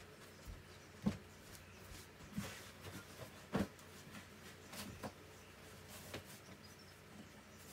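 Bed being made: faint rustling of bedding with a few short knocks and thumps, the loudest about a second in and again around three and a half seconds.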